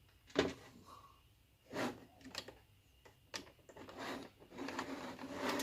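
Scattered clicks, light knocks and rustles of hands handling tools and parts on a workbench, with no steady or repeating sound.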